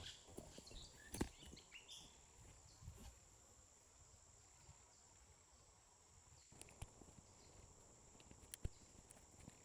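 Faint outdoor ambience: a steady high insect drone, like crickets, with a few sharp clicks and snaps, the loudest about a second in and another near the end.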